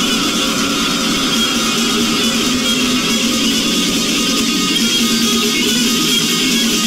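Death metal band playing live: heavily distorted electric guitar and bass in a dense, unbroken wall of sound.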